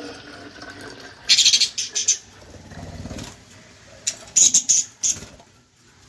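Budgerigars chirping in two quick clusters of short, shrill calls. Between them, water is being poured from a steel tumbler into a plastic bottle.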